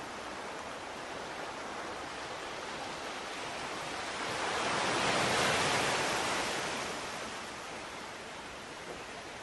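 Steady rushing, hiss-like noise of moving water. It swells louder for about three seconds midway through, then eases back.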